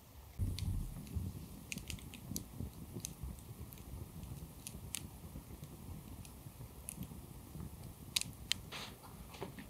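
Wood campfire burning: a low rustle of flames with scattered sharp crackles and pops, starting about half a second in, with two louder pops near the end.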